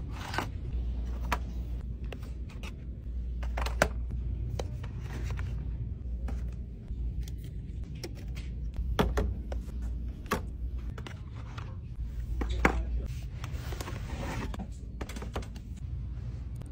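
Plastic products and packaging being picked up and handled on store shelves: scattered sharp clicks and taps over a steady low rumble of store ambience.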